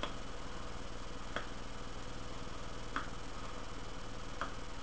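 Soft lip pops from puffing on a straight tobacco pipe, about one every second and a half and slightly uneven, over a steady background hum.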